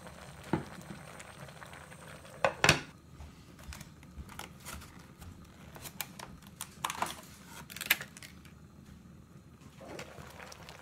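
Ceramic lid of a clay donabe pot being set on and handled, giving a few sharp ceramic-on-ceramic clinks; the loudest comes about two and a half seconds in, with lighter knocks around seven and eight seconds.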